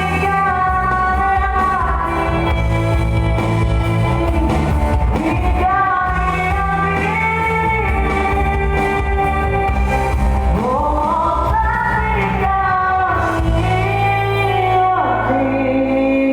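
Live band playing a song: a voice sings long held notes, sliding up into several of them, over a steady bass backing.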